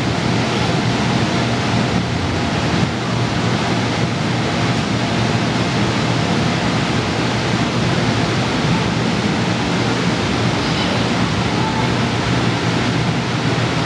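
Steady loud rushing noise with a low hum underneath, the sound of the electric air blowers that keep the inflatable bounce structures inflated.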